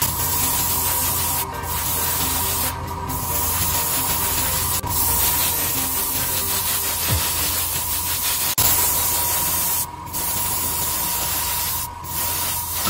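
Steady hissing air from an airbrush and a spray booth fan, with a low hum and a thin steady whine under it. The hiss cuts out briefly about five times.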